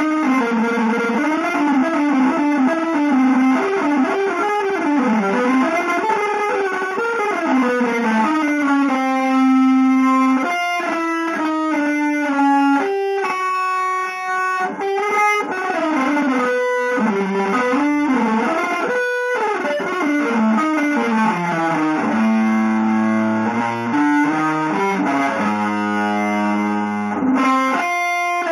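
Electric guitar played through effects with some distortion, in an avant-garde jazz style: a fast flurry of single notes at first, then held notes and chords, moving to lower chords near the end.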